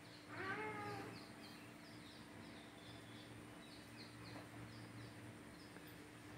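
Small birds chirping faintly and repeatedly, with a short pitched call about half a second in, over a steady low hum.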